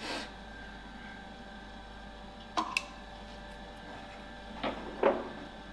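Several short metallic clinks and knocks of hand tools being picked up and set down on a milling machine table, over a steady machine hum.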